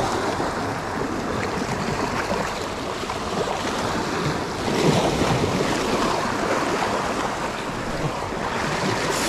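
Sea surf washing onto a rocky shore, a steady rush that swells a little louder about halfway through.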